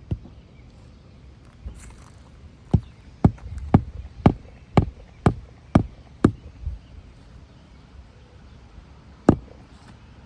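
Hammer driving roofing nails flush into asphalt shingles: a steady run of about eight sharp strikes, roughly two a second, then one more strike near the end.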